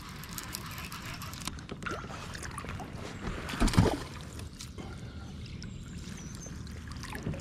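Water sloshing and trickling as a small bass is scooped up in a landing net beside a kayak, with light knocks of handling against the plastic hull. A louder thump with a splash comes about halfway through.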